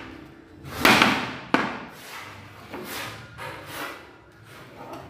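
A plywood door frame being handled on the workshop floor: a sharp wooden thump about a second in and a click half a second later, then softer rubbing and scraping as it is shifted.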